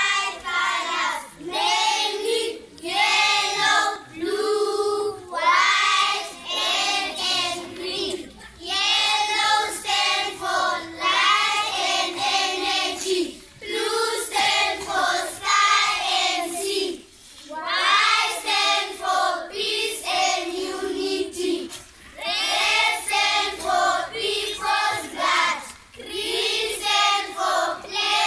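A group of schoolchildren singing a song together, in phrases of a few seconds with short breaths between them.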